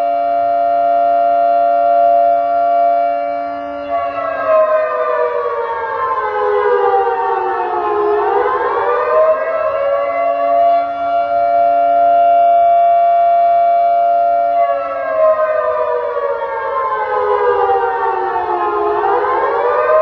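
100-watt eight-tone electronic siren sounding through horn loudspeakers: a buzzy held tone that slides slowly down over about four seconds, then sweeps quickly back up to the held pitch. The cycle comes twice, about every ten seconds.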